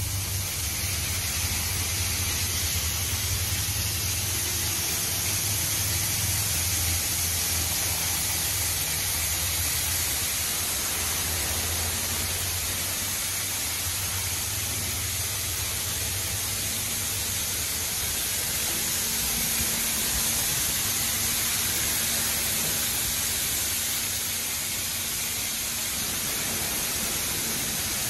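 PDQ LaserWash 4000 touchless car wash spraying high-pressure water over the car: a steady hiss of spray with a low hum underneath.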